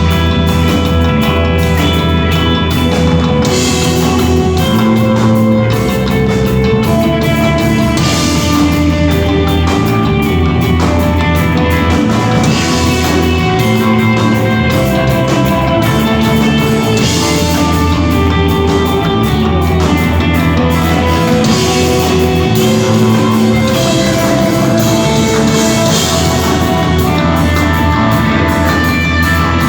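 Live rock band of electric guitar, bass guitar and drum kit playing a slow piece. Long held guitar notes change every second or two over a steady bass line and drums, at a constant loud level.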